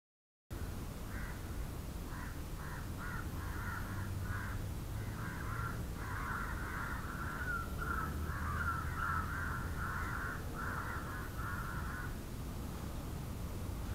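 Birds calling over and over in short, harsh calls, most densely from about five to twelve seconds in, over a steady low rumble.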